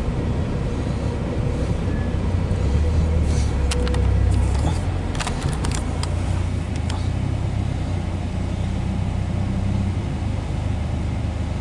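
Empty coal hopper cars of a freight train rolling past on the rails, a steady low rumble heard from inside a car, with a cluster of sharp clicks about four to seven seconds in.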